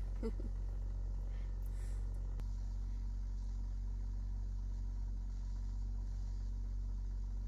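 Steady low mechanical hum that does not change, with a faint brief rustle just after the start.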